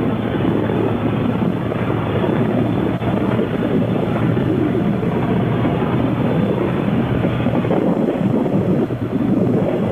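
Motorcycle being ridden at a steady speed: wind noise on the rider's microphone over the engine running steadily.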